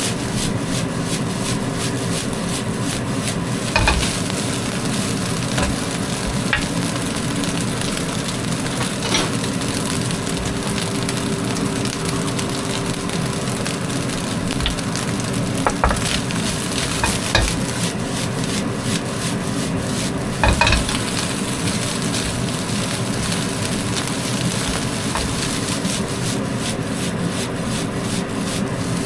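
Egg-coated rice sizzling in a hot pan as it is stir-fried, with a spatula knocking against the pan now and then. A faint steady hum runs underneath.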